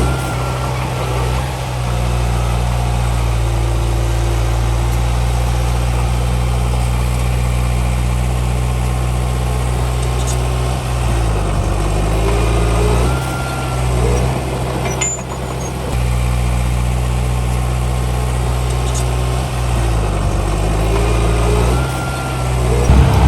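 Heavy diesel engine of an earthmoving machine running steadily, its pitch briefly dipping and recovering three times as it takes load.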